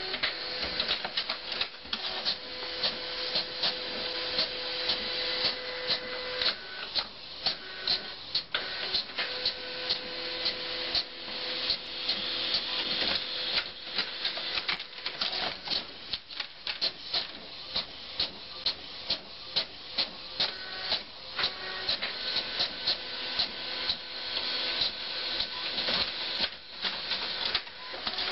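Desktop printer printing: a motor whirring in steady tones that stop and start, with a dense run of repeated mechanical clicks from the paper feed and print carriage.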